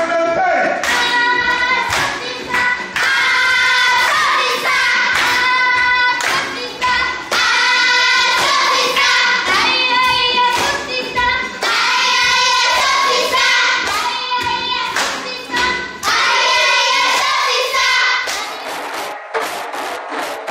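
A group of children singing a chant in unison while clapping their hands in rhythm. Near the end the singing stops, leaving only a few sharp percussive hits.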